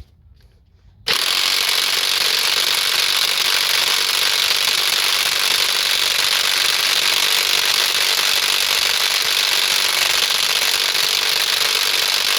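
Half-inch impact wrench hammering continuously for about eleven seconds on a stuck crankshaft bolt, starting about a second in. The bolt does not break loose.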